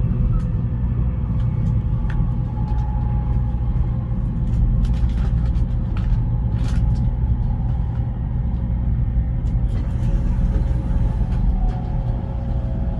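Taiwan High Speed Rail bullet train running: a steady low rumble with a faint constant whine over it and occasional light clicks.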